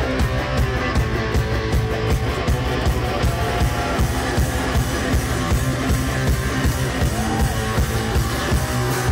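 Live rock music: an electric guitar played hard over a steadily pounding drum kit, loud throughout.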